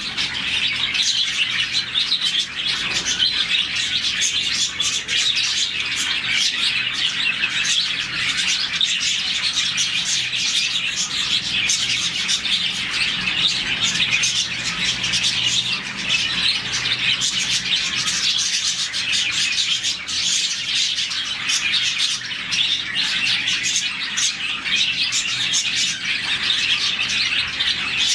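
A large flock of budgerigars chirping and chattering continuously in an aviary, many overlapping calls at once, the warbling chorus of a colony of about forty birds.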